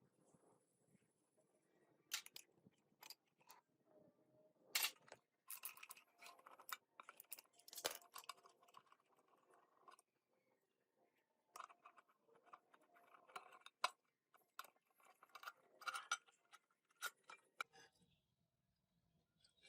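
Irregular clicks, taps and short scrapes of small parts being handled during work on a gearbox, with gaps of near silence between them.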